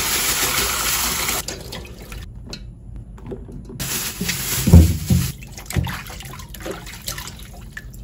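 Tap water pouring into a basin in a metal sink, cutting off about a second and a half in, followed by water sloshing and splashing as fruit is swished around by hand. A dull knock against the basin about five seconds in is the loudest sound.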